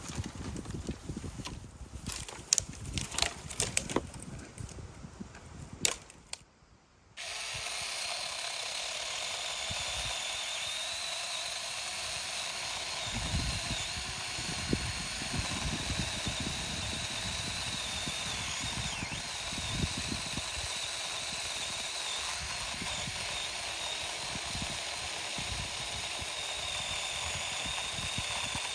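Battery mini electric chainsaw running steadily with a constant high whine, cutting through a tree branch. Before it starts there are a few seconds of scattered clicks and knocks.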